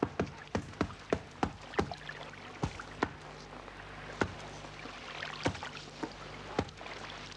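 Irregular sharp knocks of stones pounding Tephrosia roots against rock, coming about twice a second at first and then more sparsely.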